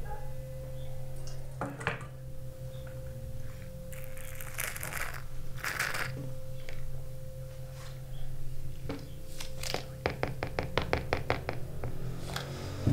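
Mate being sipped through a metal bombilla from a gourd: two short slurping draws about a second apart, over a steady low hum. Later comes a quick run of light clicks.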